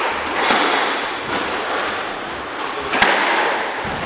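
Squash ball being struck during a rally: sharp cracks of racket on ball and ball off the walls, the two loudest about half a second in and about three seconds in, each echoing briefly in the enclosed court, with fainter knocks between.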